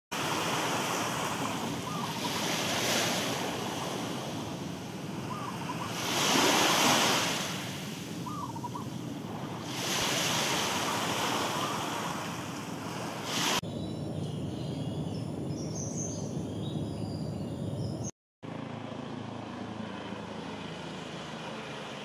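Small waves washing onto a shore, rising and falling in swells every few seconds. After a cut about two-thirds of the way in, the wash gives way to a quieter background with faint high chirps, then a steady low hum.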